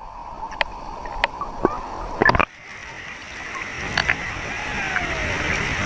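Water splashing and sloshing, with scattered sharp clicks. After a break about two and a half seconds in, a steady rushing noise slowly grows louder.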